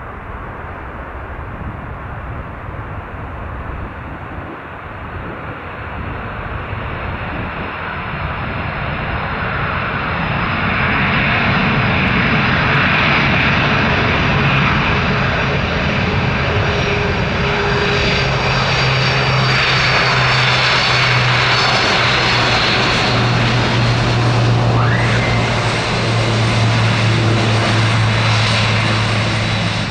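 Jet airliner engines growing louder over about ten seconds as the aircraft comes closer, then staying loud and steady with a low hum under the rushing noise.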